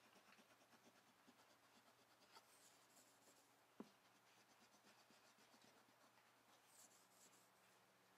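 Faint rubbing and scratching of a rubber eraser scrubbing softened 3M adhesive residue off a painted car bumper, with one small sharp click just before four seconds in.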